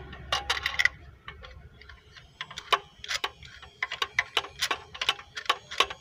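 Repeated sharp metallic clicks from a hand tool working at the fourth spark plug of a Renault 1.4 engine. A quick cluster of clicks comes in the first second, then clicks resume about two seconds in, a few a second.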